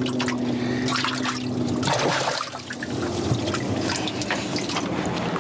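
Water splashing and dripping, with a steady low hum underneath that fades about two seconds in.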